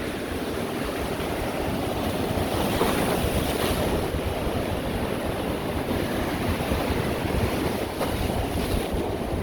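Sea waves breaking and washing on the shore in a steady surf, swelling a little about three seconds in, with wind buffeting the microphone.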